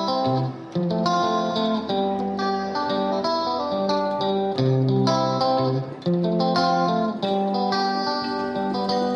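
Background music led by plucked guitar notes, a steady run of melody over sustained lower notes.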